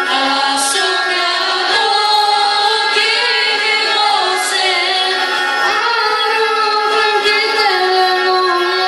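Live Pontic Greek folk music: a melody held and drawn out in long, slightly wavering notes, of the kind played on bowed Pontic lyras (kemenche).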